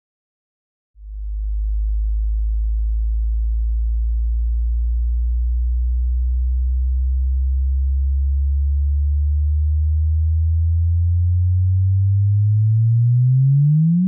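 Sonified gravitational-wave chirp of the GW170817 binary neutron star merger as recorded by LIGO. A low pure tone begins about a second in and rises slowly in pitch, then sweeps rapidly upward near the end as the two stars spiral together and merge.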